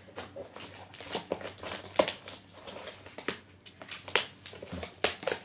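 Cardboard printer packaging being handled and pulled apart: irregular rustling, scraping and knocks, the sharpest about two seconds in.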